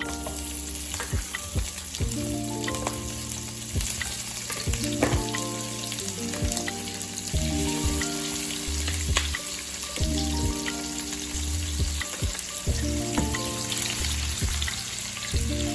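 Smoked sausage frying in bacon grease in a pan: a steady sizzle with scattered sharp clicks, over background music.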